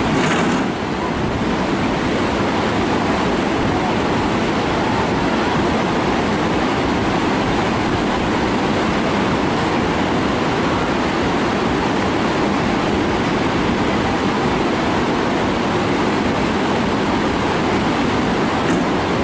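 Steady rush of whitewater on a river, loud and unbroken.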